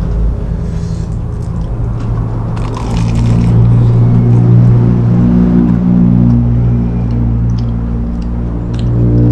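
Background music with low sustained notes, over the crisp crunch of a bite into a McDonald's fried pie about three seconds in. Small crackles of the flaky crust follow near the end as the pie is pulled apart.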